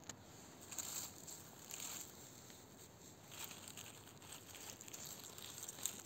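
Dry pine needles and fallen leaves on the forest floor rustling and crackling in short, irregular bursts as they are disturbed.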